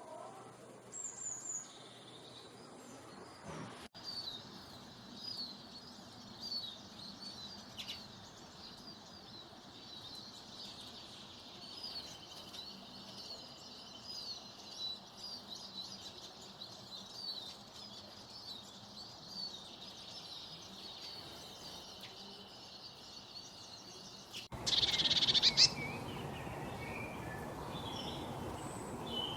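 Wild birds singing, a quick series of short high chirps repeated over and over with a faint steady high tone underneath. About 25 seconds in, the sound cuts abruptly to a louder outdoor ambience with a steady hiss and a loud, close bird call.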